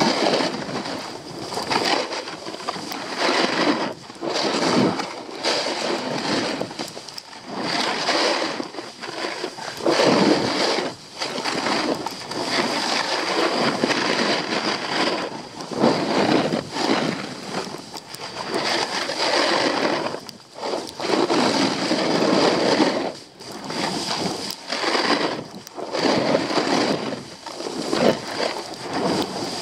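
Skis scraping and hissing on packed snow through a run of turns, swelling and fading every second or two, with wind rushing over the microphone.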